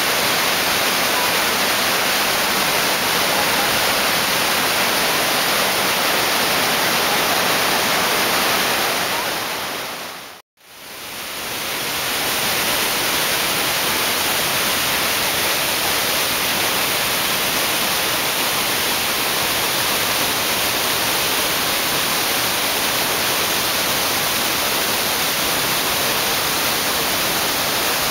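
Steady rush of whitewater pouring over the falls and rapids of the Potomac River at Great Falls, a dense even hiss. About ten seconds in it fades briefly to silence and comes back.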